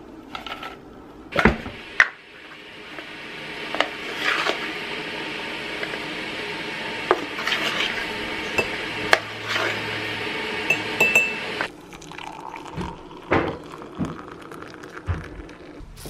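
A metal spoon clinks and taps against a ceramic mug as powdered herbs are spooned in. Behind it runs a steady rushing noise that builds slowly and cuts off suddenly about three-quarters of the way through.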